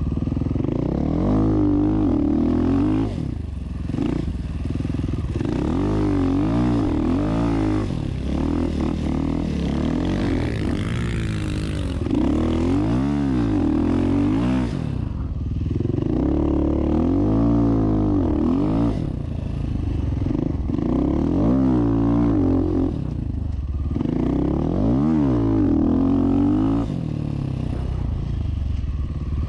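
Off-road rally motorcycle engine running hard over sand dunes, the revs rising and falling every second or two as the throttle is opened and shut.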